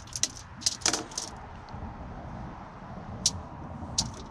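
Crinkling aluminium foil and light knife clicks as a fish's innards are handled on it: a cluster of sharp crackles in the first second or so, then two single ticks later.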